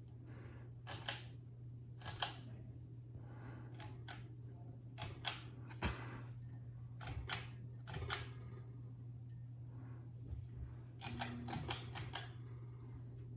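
Hampton Bay Jericho IV ceiling fan running with a steady low hum. Over it come sharp mechanical clicks, mostly in pairs, with a tighter cluster of several clicks near the end.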